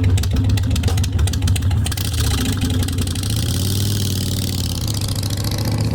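A motorcycle engine running steadily at idle, with a rapid ticking through the first couple of seconds.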